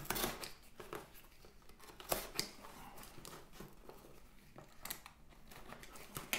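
Short scrapes, crackles and tearing of paperboard as a glued-in molded fiber insert is cut and pried loose from a laptop box with a small safety cutter, a handful of sharp scrapes spread over several seconds.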